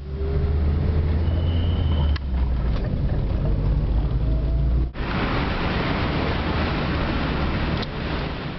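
Car engine running in slow city traffic, heard from inside the cabin as a steady low hum. About five seconds in it cuts abruptly to a louder, even rush of street and traffic noise.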